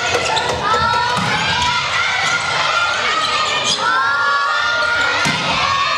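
Girls' voices shouting calls and cheers during a volleyball rally, with long high shouts about a second in and again around four seconds in, over the knocks of the ball being played and bouncing on the gym floor.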